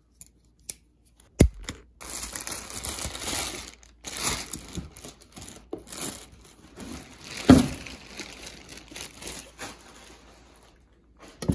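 Packaging bag crinkling, rustling and tearing as a motorcycle seat is pulled out of it, with a few sharp clicks near the start and one loud thump about halfway through.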